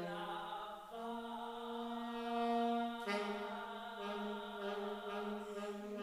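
Contemporary classical duet for voice and saxophone: a singer and a saxophone hold long, steady notes together. The notes move to a new pitch about a second in and again about three seconds in.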